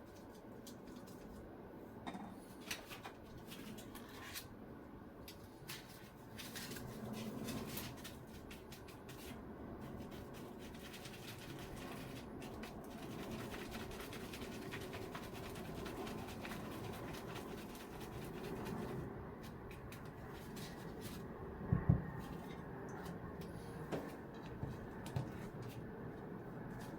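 Quiet kitchen handling sounds during food preparation: soft rustling and scraping with scattered light clicks and taps, and a couple of sharper thumps about two-thirds of the way through.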